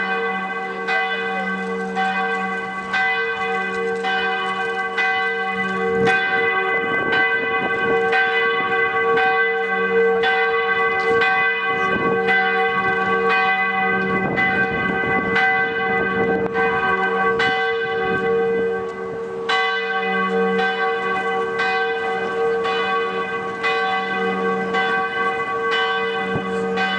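Church bells of Dresden's Hofkirche ringing in a peal: several swinging bells strike about once a second, and their tones overlap in a continuous ring.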